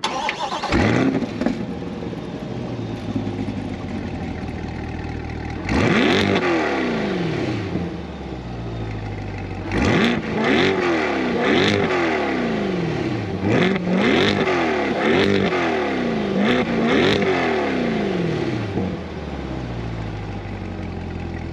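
2023 Chevrolet Corvette Stingray's 6.2-litre LT2 pushrod V8 starting through its performance exhaust with a flare of revs, then settling to idle. About six seconds in it is revved once, and from about ten seconds a quick series of throttle blips follows, each falling back, before it returns to a steady idle.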